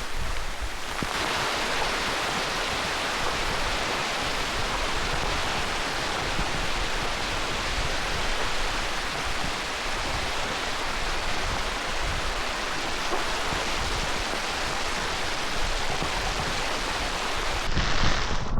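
Steady, unbroken rushing of water, even in level, swelling up about a second in.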